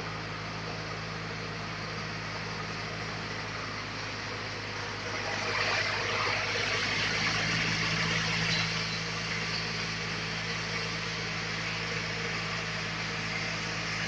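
Sawmill machinery running with a steady low hum. A louder rushing, hissing noise builds about five seconds in and eases slightly after about nine seconds.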